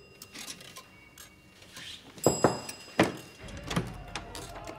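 Pendulum wall clock being handled at its face: light clicks, then sharp knocks about two and three seconds in. A steady tone sets in near the end.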